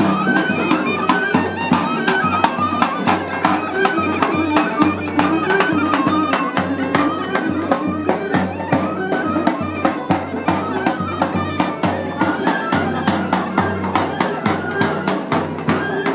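Folk music from a walking street band: a melody over a steady drum beat.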